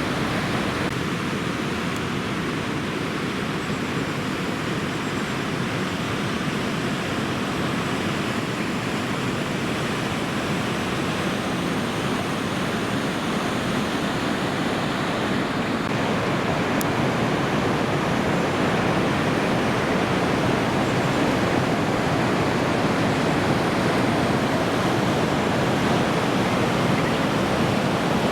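Heavy ocean surf from a typhoon swell breaking on a reef: a steady, even roar of white water that grows a little louder in the last third.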